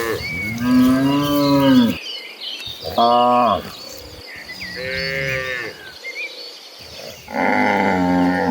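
A herd of cattle mooing: about four long, drawn-out moos of differing pitch, one after another with short pauses between them, from more than one cow.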